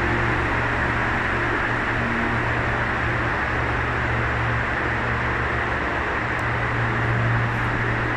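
Steady rushing noise of ventilation fans with a constant low hum underneath.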